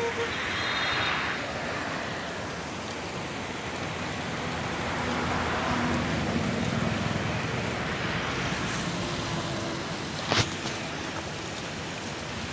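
Fast-flowing floodwater rushing past in a steady, even rush. A sharp click comes about ten seconds in.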